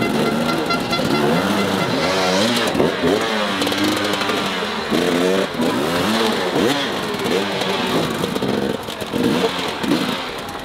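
Enduro dirt-bike engines revving hard in repeated bursts as the bikes climb over giant tractor tyres, the pitch rising and falling again and again.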